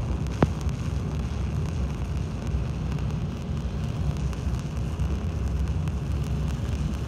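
Stick-welding arc of a 1/8-inch E7018-1 low-hydrogen electrode at about 120 amps, laying a horizontal fillet weld on a tee joint: a steady crackle, with one sharp pop about half a second in.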